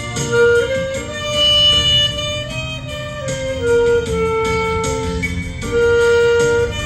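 Instrumental music: a melody instrument plays long held notes over a backing track with a steady beat.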